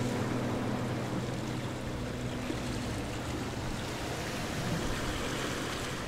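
A steady, even rushing noise like surf or wind, with the low, sustained tones of background music fading out during the first half.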